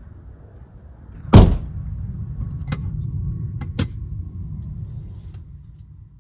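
A kei van's rear hatch slammed shut once, a single loud bang about a second in. A low rumble follows, with a few light clicks.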